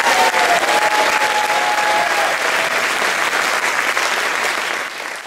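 Audience applauding, a dense sustained clapping that tails off near the end.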